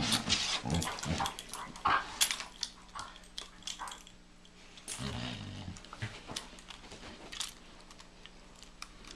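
A Doberman and a Belgian Malinois play-fighting: low growling with sharp clicking snaps and scuffling. The growling is loudest in the first second or so and comes again briefly about five seconds in, and the scuffle grows quieter toward the end.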